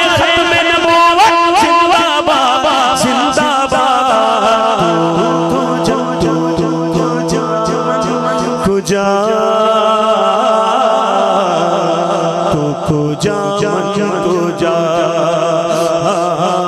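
A man singing a naat into a microphone through a PA system, drawing out long melismatic phrases with a wavering pitch. A low steady note sits under the voice from about five seconds in, with scattered clicks.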